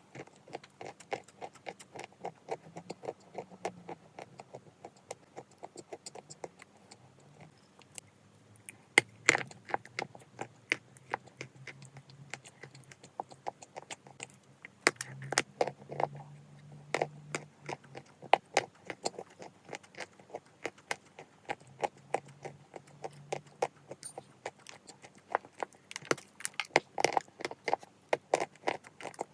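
Irregular crisp crunching and crackling of pieces of Glinkamel chalk being bitten and chewed, several crunches a second, with a few louder bites.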